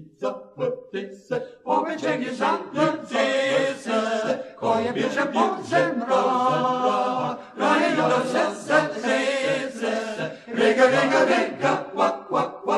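Male vocal octet singing a Slovenian folk song unaccompanied in close harmony: short, clipped notes for the first second or so, then fuller held chords, trailing off right at the end.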